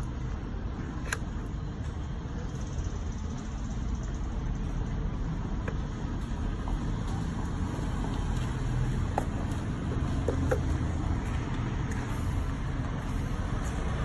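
Steady low background rumble with a few faint ticks scattered through it.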